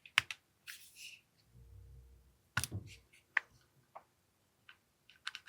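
Scattered sharp clicks and knocks of an AAP-01 airsoft pistol's parts being handled as it is taken apart, with a quick cluster of clicks near the end.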